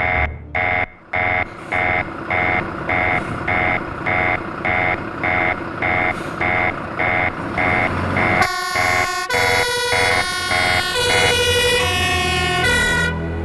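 Alarm beeping fast and evenly, about three beeps a second: a fire station call-out alarm. About eight seconds in, the beeping gives way to a fire engine's two-tone siren switching back and forth over the truck's engine rumble, cut off abruptly near the end.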